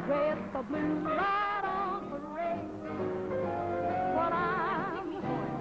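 Jazz band music for a stage dance number, several instruments sounding at once, with one note held and wavering near the end.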